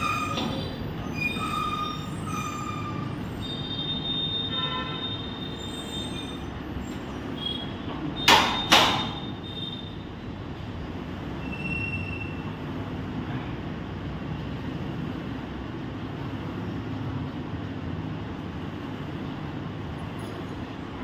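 Gym noise: a steady rushing hum, short high squeaks in the first few seconds, and two loud clanks about half a second apart some eight seconds in.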